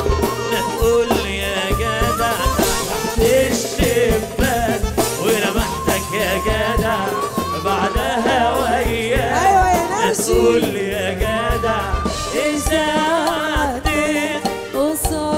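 Egyptian pop song performed live: a man and a woman singing into microphones over jingling riq tambourines and frame drums.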